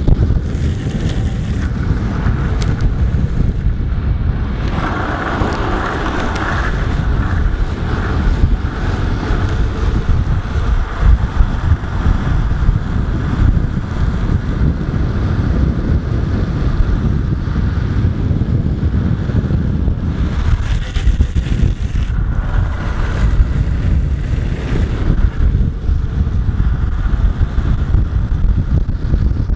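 Wind buffeting the camera microphone at downhill longboarding speed, over the steady roll of urethane skateboard wheels on asphalt. Brighter, hissier stretches come a few seconds in and again past twenty seconds.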